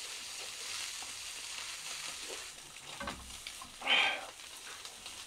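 Small pieces of beef sizzling in a frying pan on a portable gas burner: a steady frying hiss that turns briefly louder about four seconds in.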